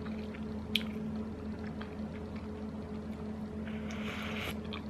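Ramen broth slurped from a ceramic soup spoon: one short, hissing slurp near the end, after a light click about a second in, over a steady low hum.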